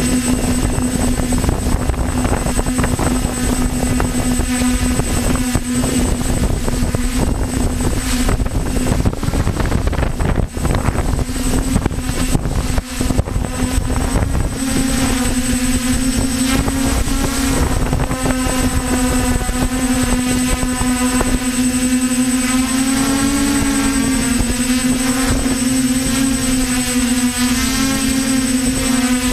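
DJI F450 quadcopter's motors and propellers running with a steady buzzing hum, heavily buffeted by wind on the microphone. In the second half the wind eases and the motor pitch wavers up and down as the speed changes.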